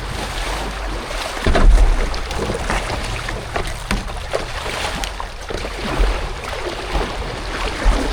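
Moving river water rushing and splashing around a kayak, with a steady hiss full of small irregular splashes. Low rumbles of wind or handling on the microphone come several times, the strongest near two seconds in.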